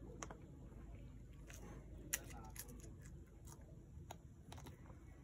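A toddler chewing crunchy snack crackers: faint, scattered crunches and clicks, the sharpest about two seconds in.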